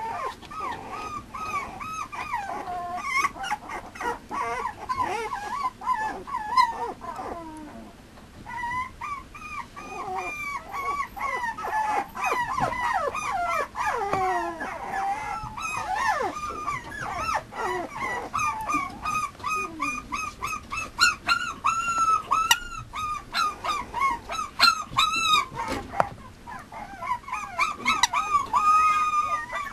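Mame shiba puppy whining over and over in short, high, rising-and-falling cries, two or three a second, with a brief lull about eight seconds in and a few sharp knocks.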